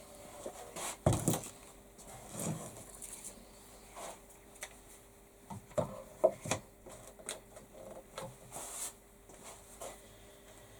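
Irregular knocks, taps and clatter of tools and objects being handled and set down on a wooden workbench, with a faint steady hum underneath.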